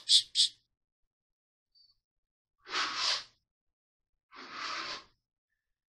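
Hand trowel scraping flooring adhesive across a plywood subfloor: two separate strokes of about half a second each, one near the middle and one near the end.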